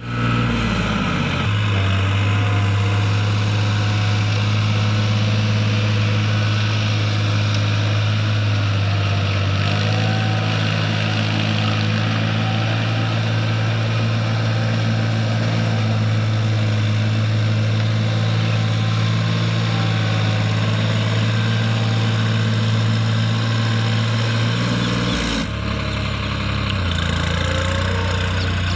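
Tractor diesel engine running steadily under load while ploughing, its low note shifting in pitch a few times.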